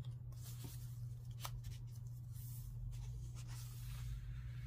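Soft rustling of thick paper as journal pages and tags are handled and a page is turned, with a small click about a second and a half in, over a low steady hum.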